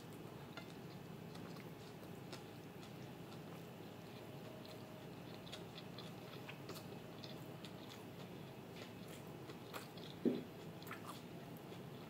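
Faint mouth sounds of a person chewing a bite of grilled tandoori chicken, with small scattered clicks and smacks. One brief, louder low sound comes near the end.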